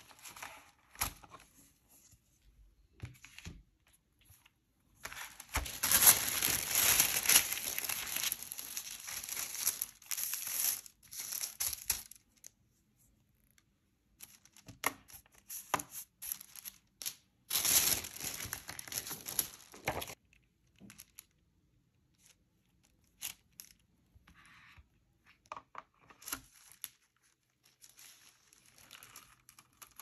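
Paper being torn and crinkled by hand, in one long stretch and a shorter one later, with small taps and rustles of handled paper between.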